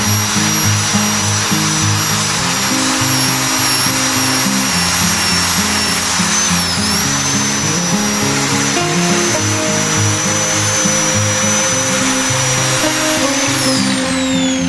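Background music over a high-speed power tool's motor whining steadily. The whine dips briefly about seven seconds in, then winds down near the end as the tool is switched off.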